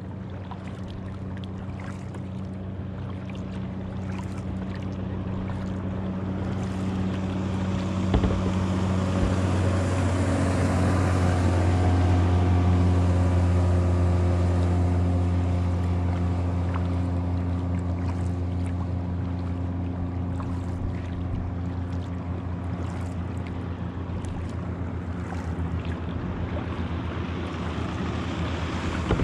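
A motorboat's outboard engine running steadily as the boat passes. Its hum grows louder to a peak about halfway through, then slowly fades.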